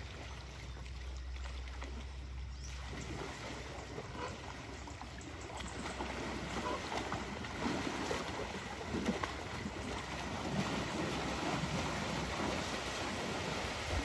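Muddy water sloshing and splashing as young elephants wade and push through a shallow pool, getting busier and louder after the first few seconds.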